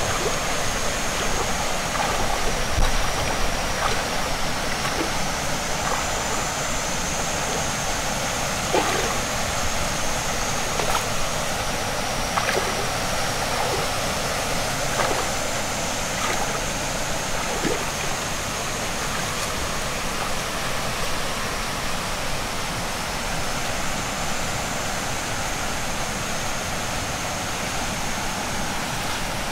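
Stream water rushing and splashing over rocks in a steady, even rush, with a thin high-pitched tone held above it.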